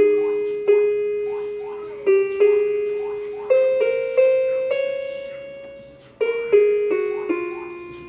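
Casio electronic keyboard playing a slow melody on its harp voice: single notes plucked one at a time, each ringing out and fading before the next.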